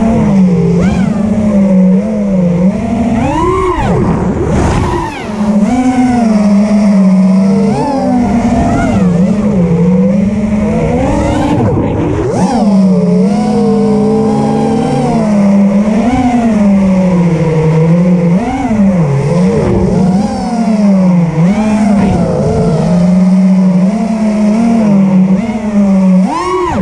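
FPV racing quadcopter's brushless motors and propellers whining, the pitch constantly rising and falling as the throttle is worked through fast flying manoeuvres.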